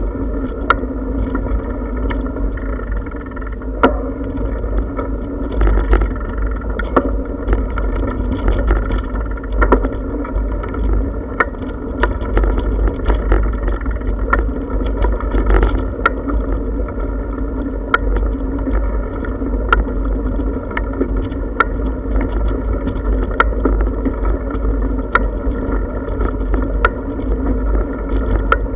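Bicycle rolling over brick paving, heard from a camera mounted on the bike: a steady rattling rumble with wind buffeting the microphone. From about halfway on, a sharp click comes roughly every two seconds.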